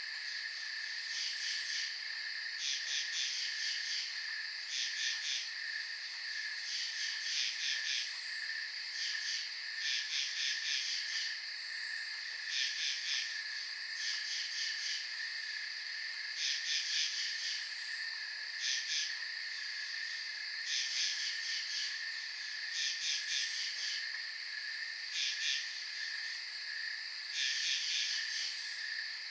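Late-summer night insect chorus: a steady high cricket trill throughout, with short bursts of rapid chirps repeating about every two seconds.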